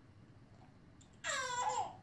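After about a second of quiet, a baby lets out a short, high-pitched squeal of delight.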